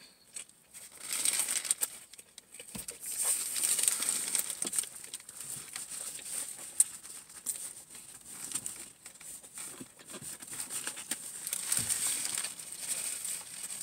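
Paper sandwich wrapper and a paper napkin crinkling and rustling as they are handled, in several bursts with small crackles.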